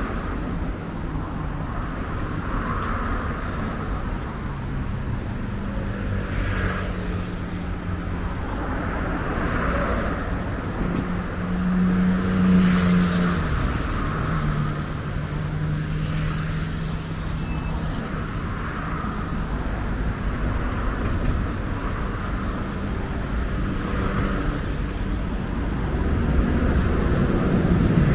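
Road traffic passing steadily, with a vehicle's engine hum swelling as it goes by about halfway through and traffic growing louder again near the end.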